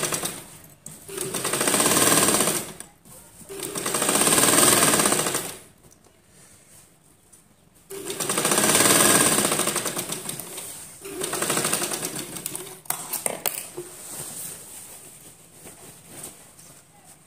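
Humsafar domestic straight-stitch sewing machine stitching in five runs of one to three seconds each, with short pauses between; each run swells and fades. The last runs are fainter, and after them only light, irregular clicks.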